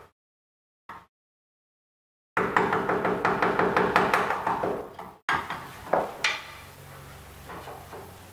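Wooden mallet tapping a wood chisel in quick light blows, about five a second, as the chisel cuts into wood. The run of taps cuts off suddenly, followed by two single knocks.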